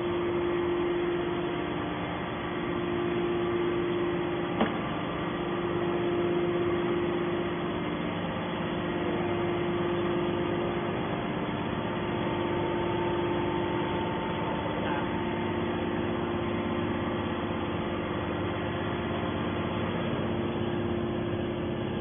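Steady hum of a hydraulic metal baler's electric motor and pump running idle, with one short click about four and a half seconds in.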